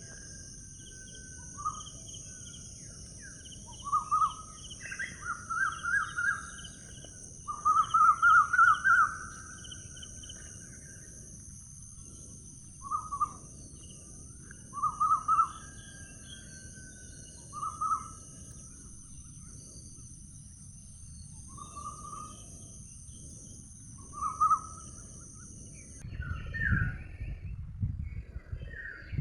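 Birds calling in short, rapid trilled phrases every second or two over a steady high-pitched hiss, which cuts off about 26 seconds in.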